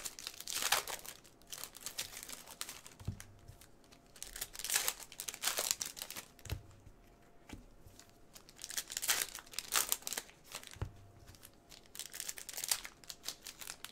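Plastic trading card pack wrappers crinkling and tearing as packs are opened and handled, with three soft knocks on the table.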